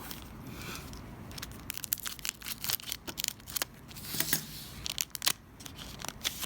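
Trading-card packs and cards being handled: wrapper crinkling and a quick run of rustles and clicks as cards are flipped and sorted.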